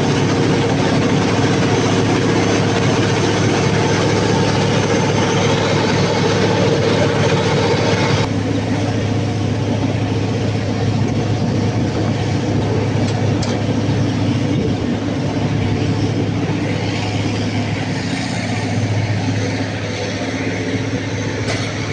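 A large engine running steadily at a constant speed. About eight seconds in, the hissy upper part of the sound drops off suddenly and the engine carries on slightly quieter.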